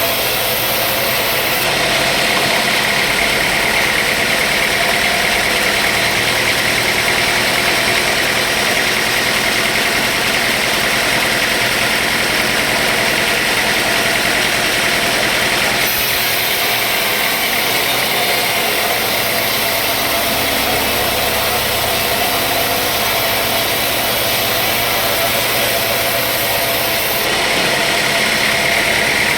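Sawmill machinery running steadily, a loud continuous mechanical noise; its high hiss shifts in level a few times.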